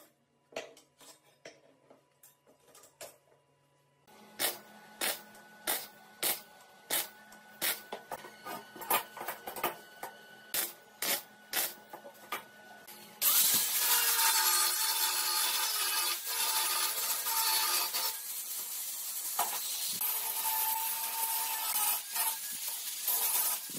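A few light clicks, then repeated scraping or filing strokes, about two a second. About thirteen seconds in, a loud continuous rasping noise takes over, breaking off briefly partway through, as surface rust is worked off a part during restoration.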